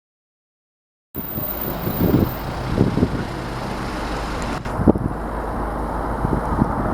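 About a second of silence, then a steady outdoor rumble of road traffic, with a few brief low thumps.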